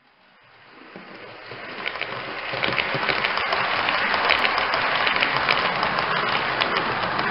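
A 00 scale model train running on layout track: a crackly, hissing clatter full of fine clicks. It grows louder over the first three seconds, then holds steady.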